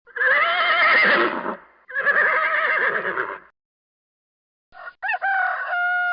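Horse whinnying twice, each neigh about a second and a half long with a shaky, wavering pitch. Near the end a different, higher animal call sweeps up, holds one steady pitch, and cuts off abruptly.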